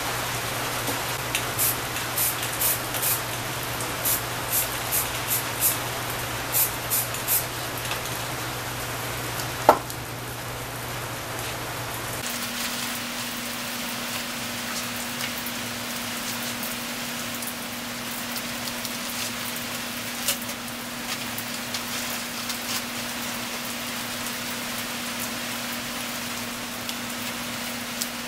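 Aerosol spray paint cans hissing: a quick run of short spray bursts over the first several seconds, then longer steady spraying, over a faint steady low hum.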